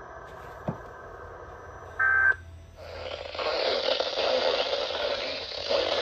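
A short electronic beep about two seconds in. Then, from about three seconds in, a handheld weather radio's speaker gives a steady static hiss as it picks up its channel.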